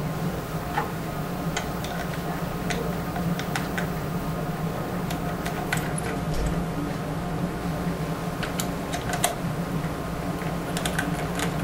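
Scattered light clicks and ticks of small parts being handled on a Lee Pro 1000 reloading press as the powder hopper's brass thumb nuts are secured, irregularly spaced over a steady low hum.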